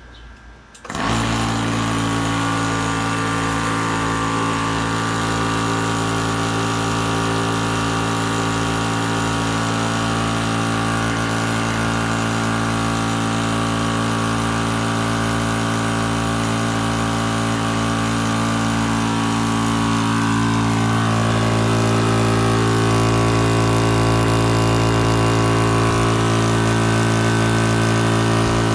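Portable 4000 psi (300 bar) electric high-pressure air compressor switching on about a second in and running steadily while filling a scuba tank, a little louder in the second half.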